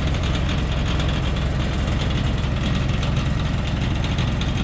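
Diesel engine of a Thaco Forland FC950 4WD truck idling steadily.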